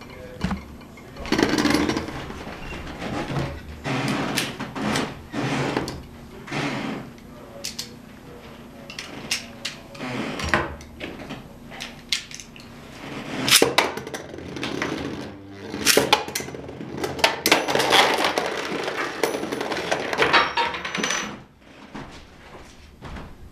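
Irregular clattering, scraping and clicking of hard plastic Beyblade toys and stadium being handled, in uneven bursts, with a busier stretch in the second half.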